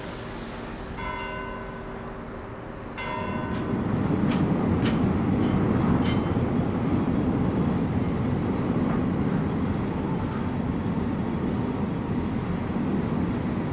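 A bell strikes twice, about two seconds apart, each stroke ringing briefly. Then a light-rail metro train rumbles steadily across the upper deck of the Dom Luís I iron arch bridge, and its rumble is the loudest sound.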